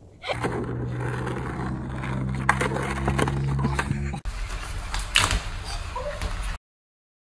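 Skateboard on asphalt: a steady low rumble with a click about two and a half seconds in, then a sharp clack of the board about five seconds in. The sound cuts off suddenly near the end.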